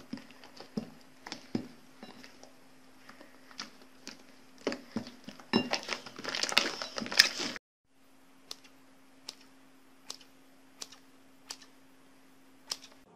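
Slime being stretched and squished by hand, giving sticky popping clicks that build into dense, loud crackling about six seconds in. After a brief silent break, a thicker slime is squeezed in a hand, with single pops a little over once a second over a faint low hum.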